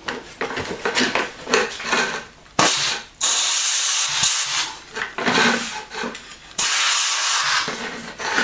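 Clearing out a freshly drilled hole in a concrete floor with a rag held down by a gloved hand: scuffing and rubbing, with two loud hissing bursts of about a second each, one a little after three seconds in and one near seven seconds.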